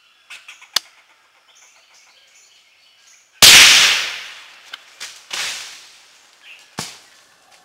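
.22 caliber rifle shot fired at a squirrel in a tree: one loud, sharp crack about three and a half seconds in, fading over about a second. A softer burst of noise follows about two seconds later, and a few sharp clicks come before and after.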